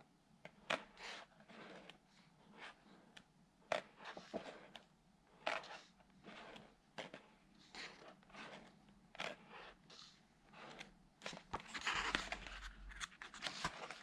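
Pages of a paperback book being turned one by one: a run of short paper swishes and flicks about every half second to a second, with a longer rustle of several pages near the end.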